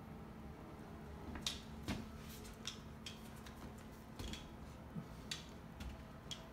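Light scattered clicks and taps, roughly one every half second to second, from a grey fox's claws on a hard wooden floor as it noses and pushes a giant tennis ball along.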